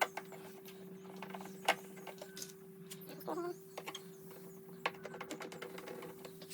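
Scattered small clicks and taps of plastic panels and screws being handled and driven while a mini ice maker's casing is put back together, over a faint steady hum.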